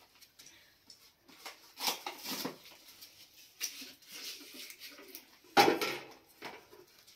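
Intermittent clatter and knocks of cookware and utensils being handled, loudest just over halfway through.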